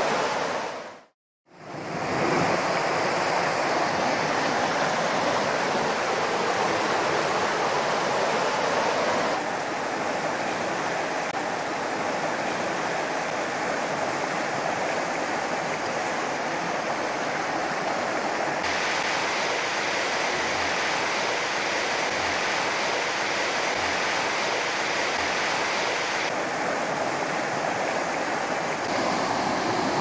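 Swollen, muddy river after rain, rushing fast over rocks: a steady rush of water. There is a brief dropout to silence about a second in, and the tone shifts slightly a few times as the recording moves between spots along the river.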